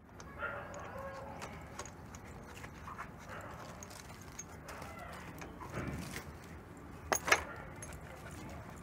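Light metal clicks and scrapes of a box spanner working a bolt on a motorcycle's engine side cover, with two sharp clicks close together about seven seconds in.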